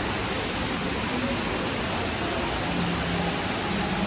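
Steady rushing of water falling down the Dubai Mall's multi-storey indoor waterfall, an even, unbroken roar of spray and splash.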